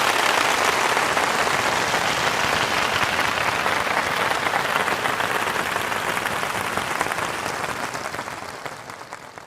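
Audience applauding, a dense, steady clapping that dies away over the last two seconds.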